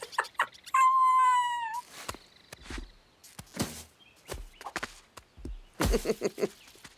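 Cartoon sound effects for a pumpkin carved at high speed. About a second in there is a high held tone, then a quick run of short sharp knocks and clicks, with a few voice-like sounds near the end.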